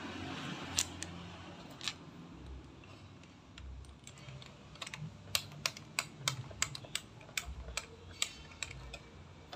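Sharp, irregular plastic clicks as hands work the hose fittings on a small electric pressure washer. There are a couple of clicks at first, then a quick run of them for several seconds near the end.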